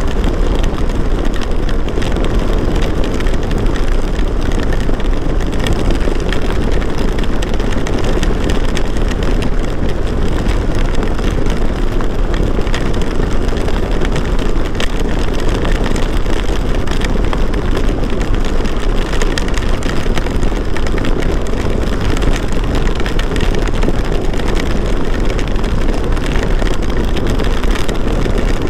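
Hero Xpulse 200 single-cylinder motorcycle being ridden in heavy rain: a steady, loud rush of wind and road noise on the microphone with the engine running underneath, unchanging throughout.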